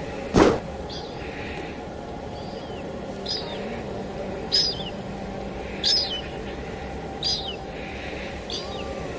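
Steady rain hiss with a bird repeating a short, falling chirp about every second and a half, over faint held musical notes. One loud, sharp crack sounds about half a second in.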